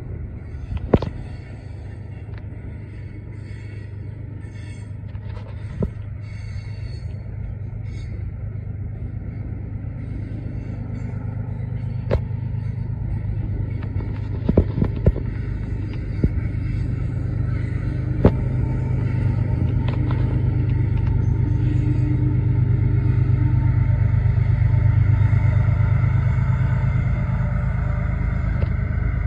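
Freight train of tank cars rolling past with a steady low rumble and occasional sharp clanks from wheels and couplers. In the last third it grows louder as the rear distributed-power unit, a GE AC4400CW diesel locomotive, draws near with its engine running.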